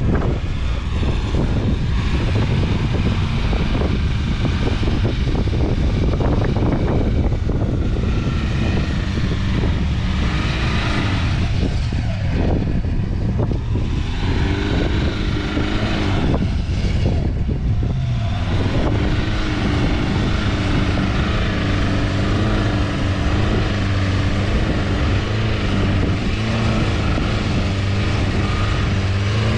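Four-wheel-drive vehicle engine running. Its pitch shifts about halfway through, then holds fairly steady with a slight waver.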